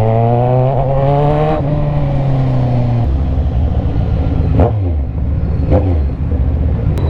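Kawasaki Z1000's 1000cc inline-four through an Orion aftermarket muffler, pulling hard with the revs climbing, then an upshift and a further pull. It then drops to a lower, rougher note as the throttle eases off, with two short sharp bursts later on.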